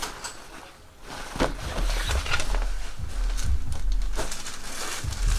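Handling noise of a nylon duffel bag being moved and cleared off a table: rustling fabric with clicks and several dull thuds on the surface.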